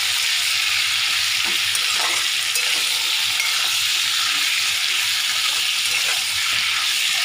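Chicken pieces in masala sizzling in hot oil in a pan while being stirred with a spatula: a steady frying hiss with a few faint clicks of the spatula against the pan.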